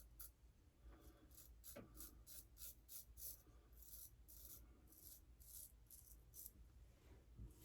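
A 6/8 Damascus straight razor scraping through lathered stubble in a run of short, faint strokes, about two a second.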